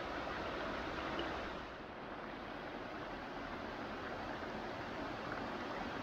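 A rocky jungle stream rushing steadily over boulders, an even hiss of running water.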